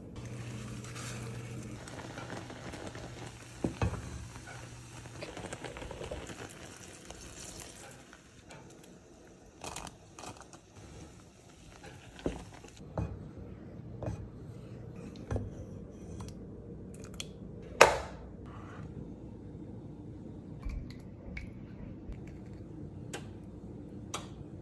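Kitchen sounds from cooking cranberry sauce in a saucepan. A steady hiss runs for the first several seconds, then come scattered knocks and clinks of a spoon against the pot and dishes, the sharpest about two-thirds of the way through.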